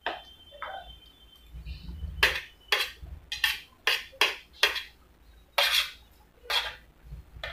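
A steel spoon clinking and scraping against a stainless steel plate as rice is scooped up, in about nine sharp metallic clicks, some ringing briefly.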